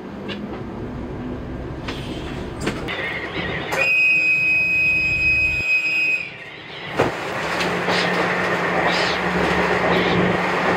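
Train sounds: a flat, high buzzer-like tone for about two and a half seconds near the middle, then a sharp knock, after which louder running noise with a steady low hum sets in.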